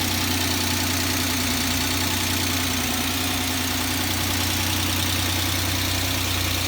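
Freshly rebuilt Suzuki H25A 2.5-litre V6 idling steadily, with a light tapping from its hydraulic lifters, which are still empty and not yet primed with oil.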